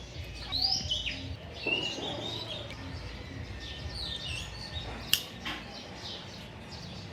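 Birds chirping: many short high calls that rise and fall in pitch, over a steady low rumble, with one sharp click about five seconds in.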